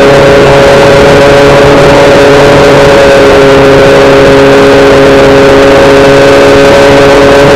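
Electric motor and propeller of a Hobbyking SkyEye FPV plane running at steady throttle in flight: a loud, steady multi-toned whine over rushing air noise.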